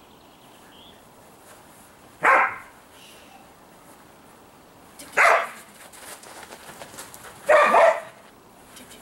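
Dog barking three times, a few seconds apart, each bark short and sharp.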